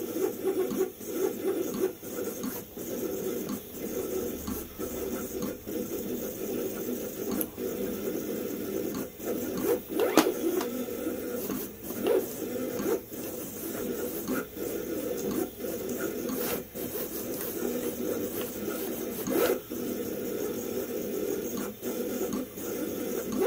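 Vevor 28-inch vinyl cutter plotting a complicated drawing with a pen on paper: the carriage and feed motors whir and buzz in quick, ever-changing runs as the head darts back and forth, with frequent sharp clicks throughout. Not super noisy.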